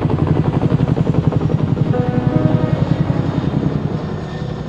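Helicopter rotor chopping in a steady, rapid beat, starting to fade near the end.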